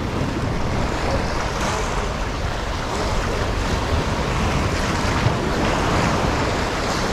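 Wind noise on the microphone over the steady wash of open sea waves.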